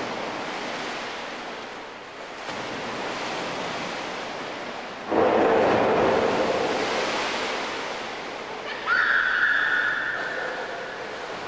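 Water splashing and churning as people jump and thrash in an indoor swimming pool, with a sudden louder burst of splashing about five seconds in. Near the end a high, held call sounds over the water for about a second and a half.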